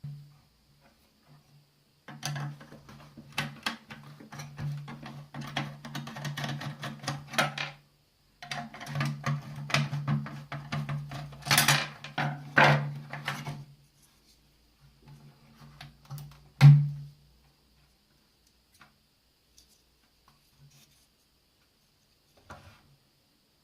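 Dense clicking and rattling of the plastic and metal parts of a Sky+HD box being handled and worked apart, in two long runs over a steady low hum. One sharp, loud click comes about two-thirds of the way in.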